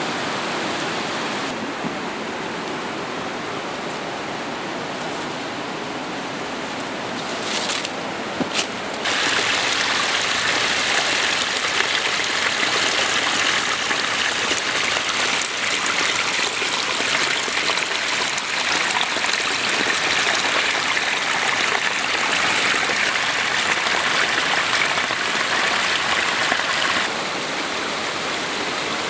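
A forest creek rushing, a steady wash of water. About nine seconds in, water spilling over rocks close by becomes louder and brighter, then drops back near the end. A couple of brief knocks come just before the louder stretch.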